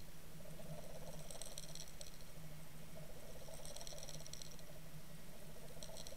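Muffled audio from inside a submerged fishing camera's housing while it is towed on a line. There is a steady low hum and, about every two seconds, a short burst of fast, faint ticking.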